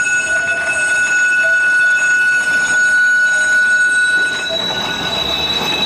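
Blackpool Millennium Class double-deck tram (a rebuilt Balloon car) rolling slowly round a curve, its steel wheels squealing in steady high-pitched tones over the rumble of the wheels on the rails. About four seconds in the squeal moves up to a higher pitch as the tram passes close by.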